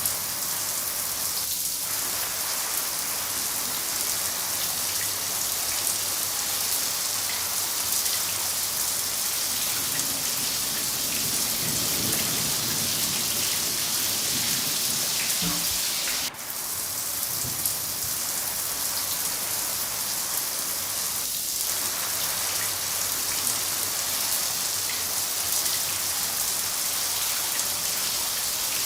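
Steady heavy rain falling, an even hiss strongest in the high range. A low rumble comes in about ten seconds in and fades a few seconds later, and there is a brief drop in level about sixteen seconds in.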